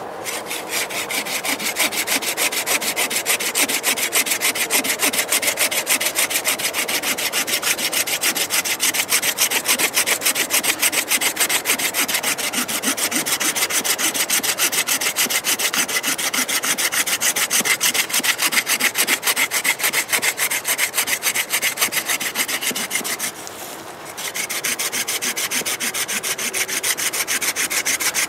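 Gardenic folding pruning saw cutting through a thick tree root: fast, steady back-and-forth strokes, each a rasping scrape of the blade in the wood. The sawing stops for under a second about three-quarters of the way through, then goes on at the same pace.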